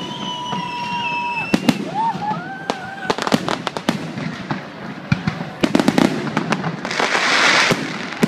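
Fireworks display: a rapid series of sharp bangs from shells bursting. High whistles fall slightly in pitch in the first two seconds, and a dense crackle of many small pops lasts about a second near the end.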